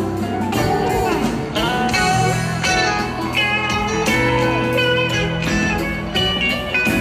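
A live rock band playing an instrumental passage: an electric guitar lead with bent, gliding notes over steady bass notes and drums, recorded from within the crowd.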